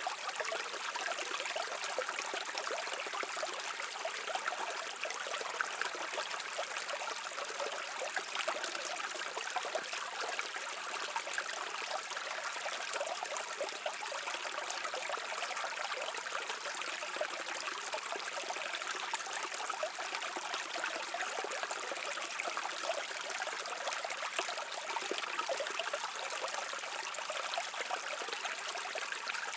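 Stream water flowing steadily over rocks, a continuous babbling and trickling.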